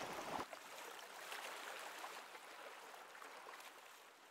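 Faint outdoor ambience: a soft, even hiss with a few light ticks, fading out toward the end.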